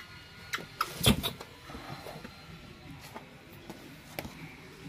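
Knocks and light rustling as a baby monkey climbs out of a metal tub lined with a plastic bag and drops onto a wooden floor. The loudest is a single thump about a second in, with a few smaller clicks around it and another near the end.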